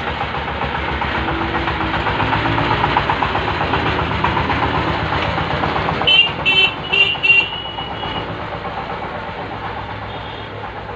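Road traffic: a vehicle's engine rumble swells and fades as it passes. About six seconds in come several short horn beeps, the last held a little longer.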